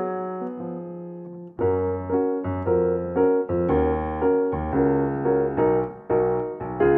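Background piano music: a held chord fading slowly, then from about a second and a half in, a bass line joins and chords are struck on a steady beat.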